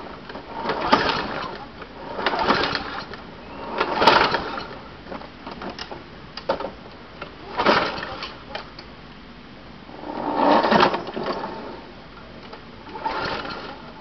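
A 6.5-horsepower lawn mower engine being pull-started over and over: about six rope pulls a few seconds apart, each a short burst of cranking that dies away without the engine catching. This is a hard start after the mower has sat for two weeks, primed and choked, with the engine's good compression felt in each pull.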